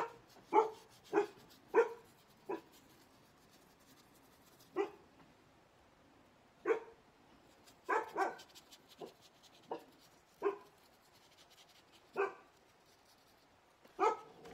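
A dog barking repeatedly, about fourteen short barks: a quick run of five at the start, then single barks every second or two.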